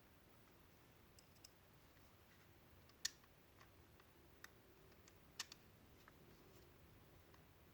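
A few sparse small clicks and taps from handling hair-clipper parts and screws during reassembly, the two loudest about three seconds and five and a half seconds in, over near silence.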